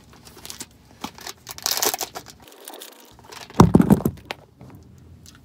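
Granola bar wrapper crinkling and tearing as it is opened by hand, with a sharper rustle about two seconds in and one louder knock a little past halfway.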